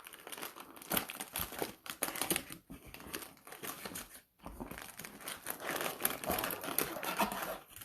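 Crinkling plastic wrapping of cellophane-wrapped trading-card packs being handled and pulled out of their box: a dense run of crackles with a brief pause about four seconds in.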